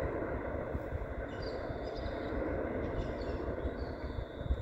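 Airbus A380 on final approach, heard from the ground: the steady, broad rumble of its four jet engines, with a rougher, uneven low end.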